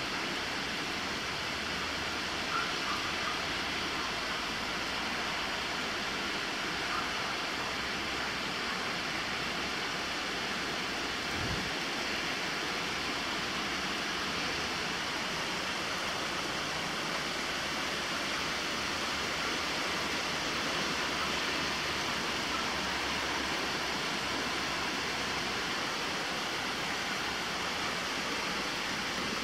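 Heavy thunderstorm rain pouring down steadily, an even hiss. There is a brief low bump about a third of the way through.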